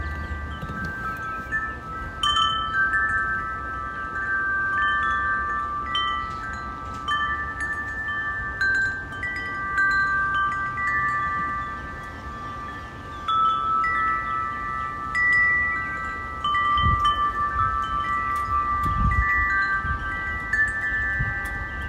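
A wind chime ringing, its several pitches struck at irregular moments and overlapping as they die away, with a couple of low rumbles in the second half.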